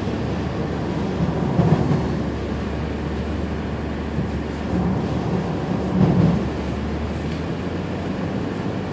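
Car interior noise while driving on a snow-covered highway in strong wind: a steady low rumble of tyres and engine that swells louder twice.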